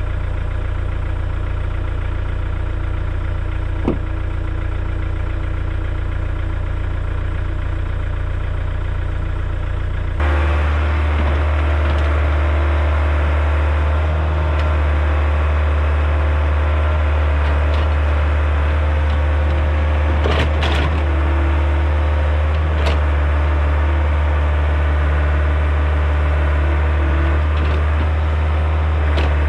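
Excavator's diesel engine running steadily, stepping up to a higher, louder speed about a third of the way in and holding there. A few sharp knocks and clunks sound over it.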